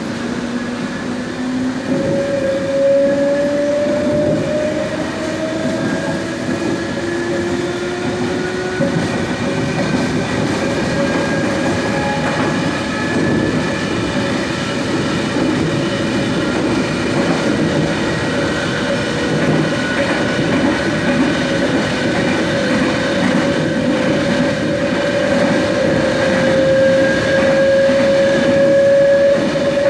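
Trensurb Series 100 Hitachi electric train running loud, its traction motors giving a growling whine made of several tones that rise slowly in pitch as the train gathers speed, over a steady rumble of wheels on rail.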